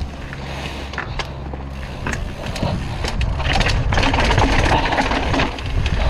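Bike rolling down a rocky trail: tyres crunching and the bike rattling over rocks, with wind rushing on the microphone. The rattling gets louder and busier about halfway through.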